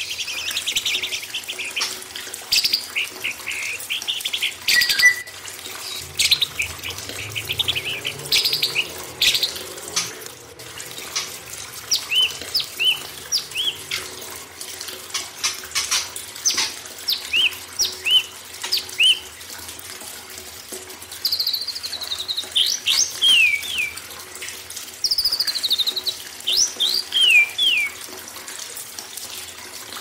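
Songbirds singing in quick, varied phrases of chirps, trills and short falling whistled notes over a steady sound of running water.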